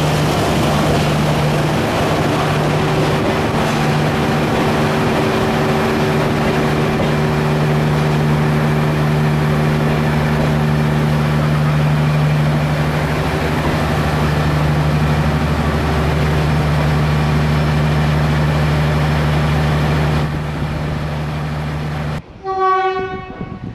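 Diesel locomotive engine running with a steady low drone as it moves along the platform. The drone cuts off about 22 seconds in, and a short train horn blast of about a second follows.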